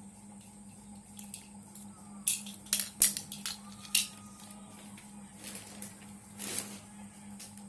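Handling sounds of small objects being worked by hand: a cluster of sharp clicks and knocks about two to four seconds in, then a softer scrape near the middle, over a steady low hum.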